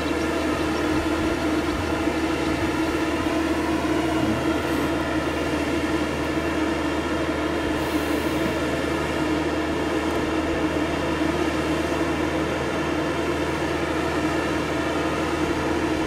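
Engine of a boat travel lift running steadily while the lift holds a motor yacht in its slings: an unbroken, even drone with a strong mid-low tone.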